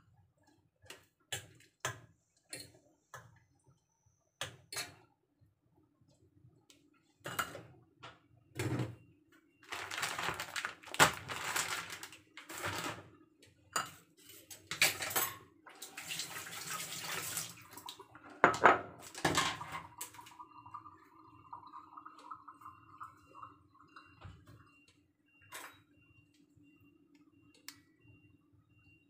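Kitchen handling sounds: a stainless steel pot, its lid and utensils clinking and knocking irregularly, with two stretches of running water, several seconds each, around the middle, over a low steady hum.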